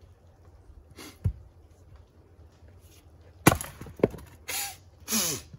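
An axe chopping firewood, its blade striking and splitting pieces off a round: a lighter hit about a second in, then a sharp crack at about three and a half seconds, the loudest, and another hit just after it.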